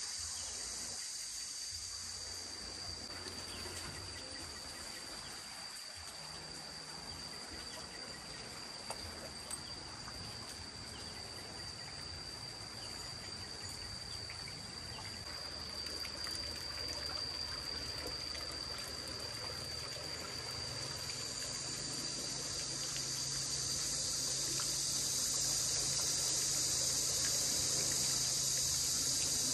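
Insects chirring steadily with one high, even tone, and a high hiss that swells louder over the last third. A faint low hum joins about two-thirds in.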